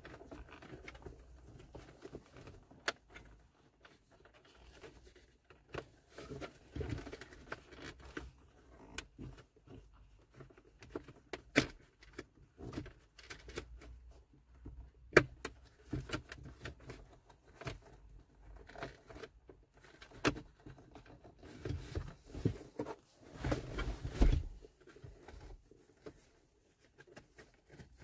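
Plastic instrument-cluster surround being worked into its dashboard clips by hand: scattered plastic clicks and knocks with rustling handling noise, and a run of louder bumps near the end.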